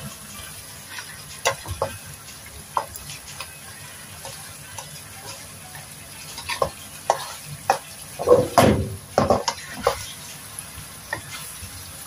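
A spatula scooping simmering tomato braising sauce over small scad in a wok, with scattered clicks and scrapes against the pan over the faint steady sizzle of the sauce. A louder run of scraping comes about two-thirds of the way through.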